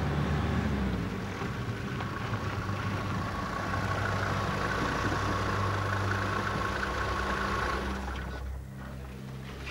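Mercedes-Benz G-Wagen military jeep engine running steadily as it drives on a flat tyre, getting quieter near the end.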